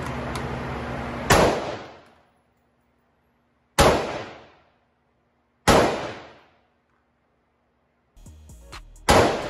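Four single gunshots echoing in an indoor firing range, each ringing out for most of a second. The first comes about a second in, the next two about two seconds apart, and the last near the end.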